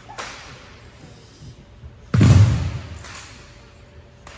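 Rifle drill squad moving in unison: a sharp slap on the rifles just after the start, then about two seconds in a loud, heavy thud on the wooden gym floor that rings out for nearly a second in the big hall.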